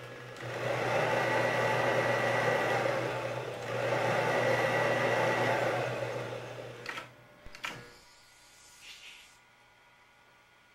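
Mechanical whirring noise in two long swells of about three seconds each over a steady low hum, followed by two sharp clicks about half a second apart.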